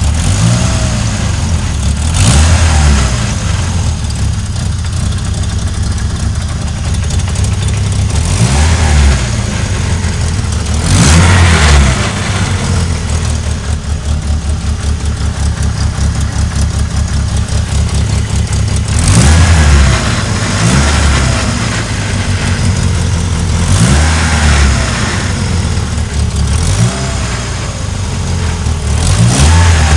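Car engine idling, revved up and let fall back several times in short blips.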